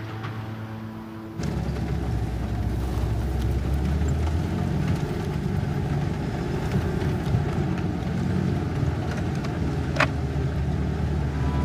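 Car interior while driving: a steady low engine and road rumble, which takes over about a second and a half in as the film score cuts off. About ten seconds in there is one sharp click as the dashboard cassette player's button is pressed, and music starts right after it.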